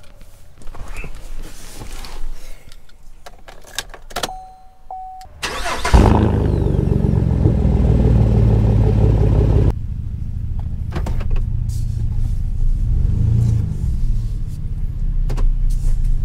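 Chevrolet pickup truck's engine cranking and catching about six seconds in, running at a loud fast idle for a few seconds, then dropping to a lower, steady idle near the ten-second mark. Before the start come clicks and knocks from inside the cab and a short electronic chime.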